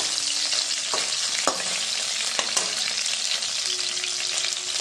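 Chicken pieces sizzling steadily in hot oil in a stainless steel pan, nearly browned, with a metal spatula scraping and clicking against the pan a few times.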